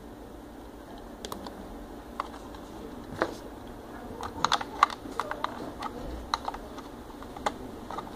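Scattered sharp plastic clicks and taps from handling an alarm control panel, with a quick run of clicks about halfway through.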